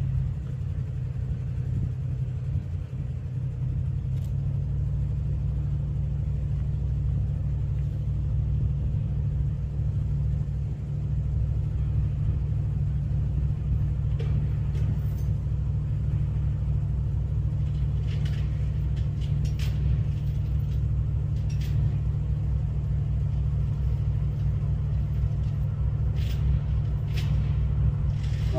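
Diesel locomotives of an approaching Norfolk Southern freight train: a steady low engine rumble that slowly grows louder as the train draws closer.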